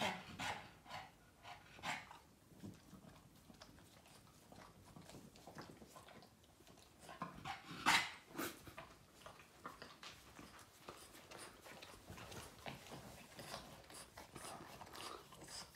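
Boston terrier licking a person's face and hands: a string of irregular short wet licking sounds, one louder than the rest about eight seconds in.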